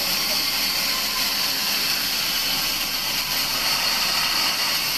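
Large vertical band saw running and cutting lengthwise through a dry wooden log, a steady, even high hiss of blade through wood that does not change.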